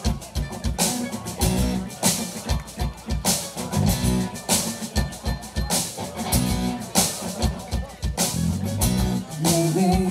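A live band playing an instrumental intro: strummed acoustic guitars and mandolin over a drum kit keeping a steady beat.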